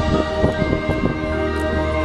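High school marching band playing: brass and woodwinds hold chords while drums strike a quick run of hits in the first second, then the winds carry on sustained.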